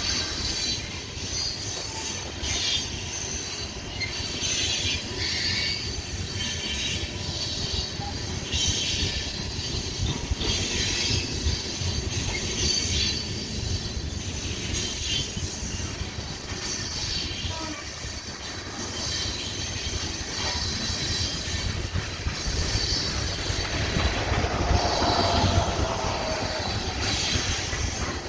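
Freight train cars rolling past on the rails: a steady rumble with repeated high-pitched wheel squeal, and a brief tone rising out of it near the end.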